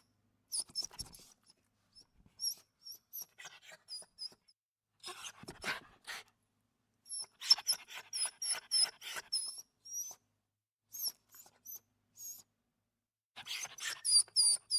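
Dog whimpering: many short, very high-pitched whines, coming in clusters with pauses between them, busiest about halfway through and again near the end.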